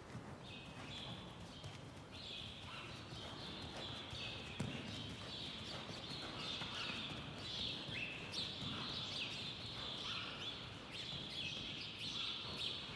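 Hoofbeats of a horse trotting on a sand arena footing, with many birds chirping over them, the chirping louder than the hooves.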